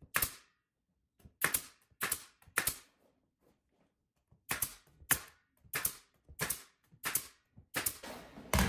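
Pneumatic nail gun, fed by an air hose, firing nails into wooden trim boards: a dozen or so sharp shots, a few spaced out over the first three seconds, then a quicker run of about two a second through the second half.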